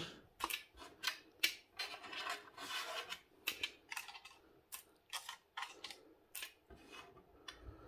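Small salvaged computer chips clicking and rattling as a few are dropped in and moved around on the weighing scale, in scattered light clicks with some rubbing in between.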